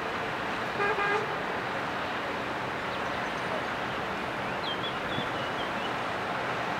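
Steady hum of lorries and cars unloading from a ro-ro ferry's stern ramps. A vehicle horn gives a short double toot about a second in, and a few faint bird chirps come near the end.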